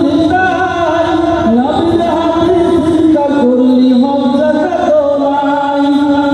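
A man singing a Bengali Islamic gojol into a microphone, holding long notes and sliding between pitches in a melismatic line.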